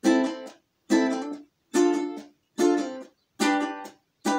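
Ukulele strummed in a reggae rhythm: short chords about every 0.85 seconds, each cut off into silence before the next.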